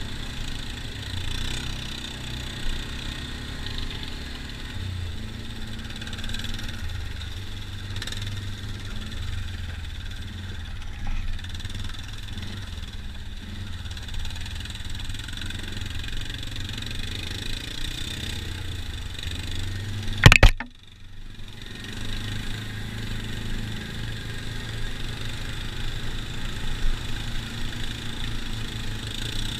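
ATV engine running steadily as the quad rides along, with one sharp, loud knock about two-thirds of the way through, after which the sound briefly drops out.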